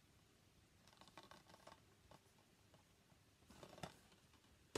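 Near silence with faint clicks and rustles of plastic Blu-ray cases being handled and set down, and a sharper click at the very end.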